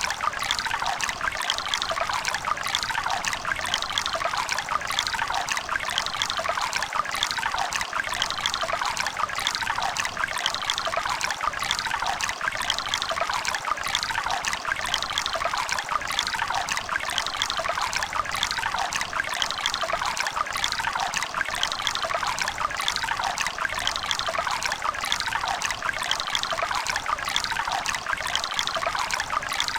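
Shallow river running steadily, water trickling and bubbling over stones with a constant splashing rush.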